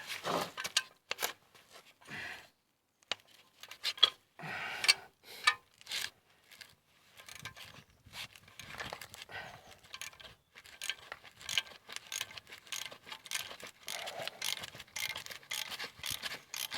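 Irregular metallic clicks, clinks and scrapes of tools and steel parts being worked while pulling a Toyota Prius wheel bearing hub out of its knuckle. The clicks come thicker in the second half.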